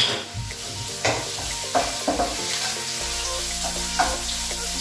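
Onions, carrots and red pepper sizzling in hot oil in a frying pan, stirred with a wooden spatula that scrapes and knocks against the pan every second or so.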